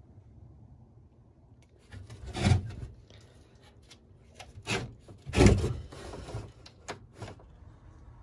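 Plywood being handled by gloved hands: a few short scrapes and knocks of wood on wood, the loudest about two and a half and five and a half seconds in, with smaller clicks after.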